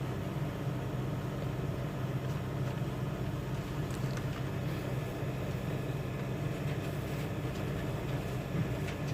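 Steady low hum with even, unchanging level, and a few faint ticks.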